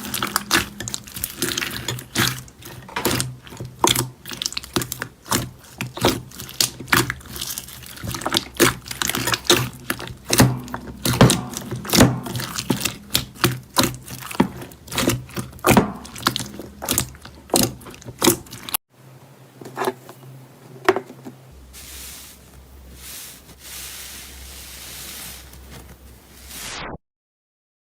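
Soft slime being squeezed and pressed by hand: a rapid, irregular string of wet clicks and pops. About 19 seconds in it cuts to quieter, softer squishing over a light hiss, then drops to silence for a moment near the end.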